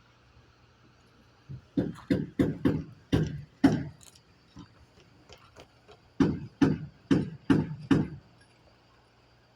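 A rapid series of heavy knocks or blows in two bursts, about seven strokes and then five, a few per second, with a short ring after each, typical of hammering at a construction site.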